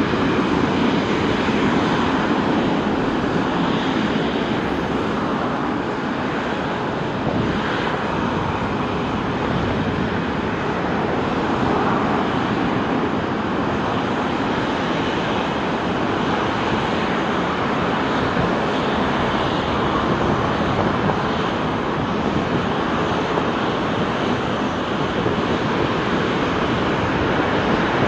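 Boeing 777-300ER's two GE90-115B turbofan engines running at low taxi power, a steady jet rumble that holds even throughout.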